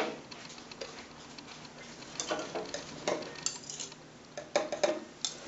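Metal teaspoon clinking against a small glass bowl and a plastic bottle as liquid is spooned from one into the other: one sharp clink at the start, then a scatter of lighter clinks and taps.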